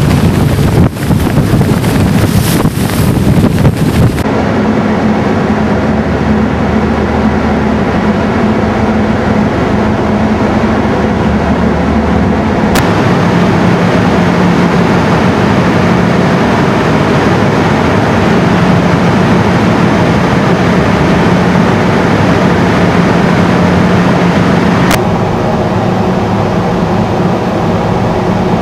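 Wind buffeting the microphone on a ferry's open deck for about four seconds. It cuts suddenly to a steady low drone with a hum: the ship's engines and machinery heard on the enclosed car deck.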